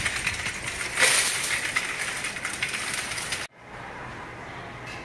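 Wire shopping cart rattling and jangling as it is pushed along, its metal basket and casters clattering. The rattle cuts off suddenly about three and a half seconds in, leaving a much quieter background hum.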